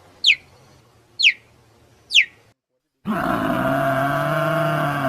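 Three short, high whistled calls, each falling in pitch, about a second apart. About three seconds in, a large animal starts a long, low, steady moaning call.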